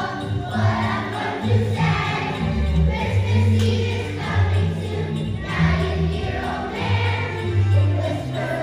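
A choir of first-grade children singing together to a musical accompaniment with a bass line that moves from note to note.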